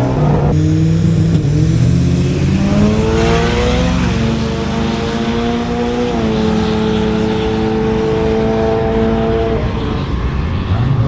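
A drag-racing vehicle's engine accelerating hard down the strip, rising in pitch through the gears with two gear changes where the pitch drops. It then holds a steady pitch before fading. Another engine revs up near the end.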